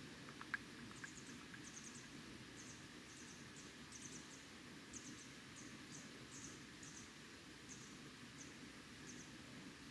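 Faint outdoor ambience at a pond: short, high chirps from a small creature repeat about twice a second over a low steady rumble, with a couple of soft ticks about half a second in.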